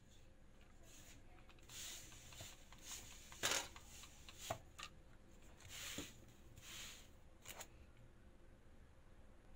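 Faint rustles and soft scrapes of hand work with pastry tools, in six or so short strokes, the sharpest about three and a half seconds in.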